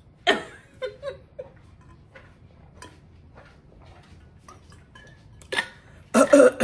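A person drinking from a water bottle: scattered handling clicks and a few small swallowing sounds, with a sharper click about 5.5 seconds in as the lid is closed. A short, loud vocal sound comes right at the end.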